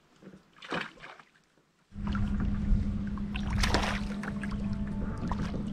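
A short splash about a second in as a released bass goes back into the water. Then, from about two seconds in, a steady low hum with a rumble under it.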